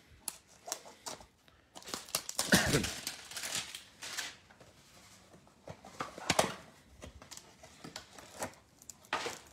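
Cardboard hanger box of trading cards being handled and torn open by hand: scattered rustling, tearing and light taps, busiest about two seconds in and again about six seconds in.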